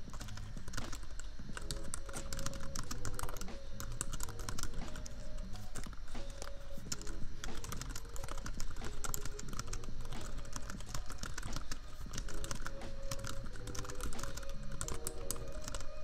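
Steady, rapid typing on a computer keyboard, a dense irregular run of key clicks, over soft lofi music and a steady low laptop-fan hum.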